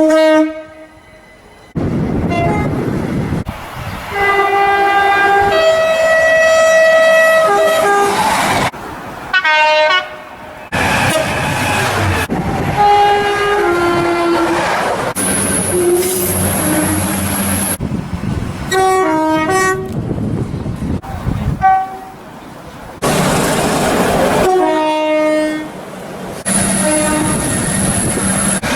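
Locomotive horns sounding in a quick series of separate clips with abrupt cuts between them: some long steady blasts, some short repeated toots, each a steady chord of several tones, with the rumble of the passing train under and between them.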